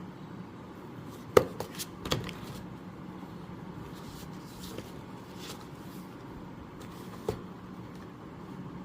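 A few sharp clicks and taps over a steady low hum: a quick cluster about one and a half to two seconds in, then one more near the end.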